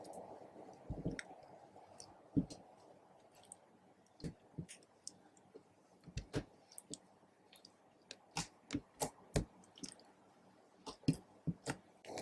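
Slime being worked by hand, giving irregular sticky clicks and small pops, bunched more closely in the last few seconds.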